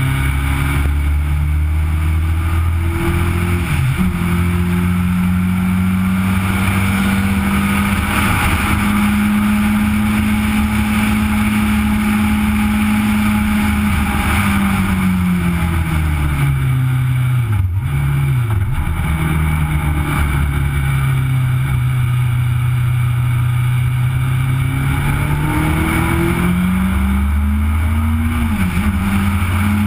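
Onboard sound of a Legend race car's Yamaha four-cylinder motorcycle engine running hard at racing revs, heard with wind and road noise on the car-mounted camera. Its pitch climbs, drops steeply about halfway as the car slows, then climbs again, with a gear change near the end.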